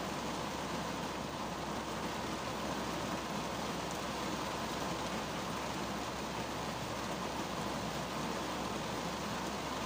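Steady rain falling on the roof and windshield of a 2010 Kia Cerato, heard from inside the cabin as an even, unbroken hiss.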